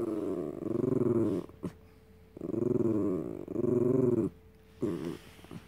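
Small white long-haired dog growling in long, grumbling growls that rise and fall in pitch: two drawn-out growls, then a short one near the end. It is a protesting, demanding grumble from a dog that isn't getting the cookie it wants.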